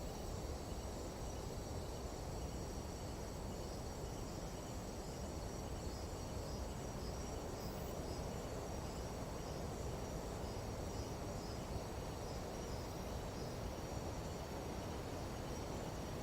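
Steady chorus of night insects in a tropical jungle, high-pitched trilling with a faint regular pulsing, over a low rumble of wind.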